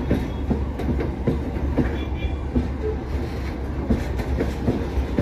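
Container freight wagons rolling past close by: a steady low rumble of steel wheels on the rails, with frequent clacks and knocks from the wheelsets.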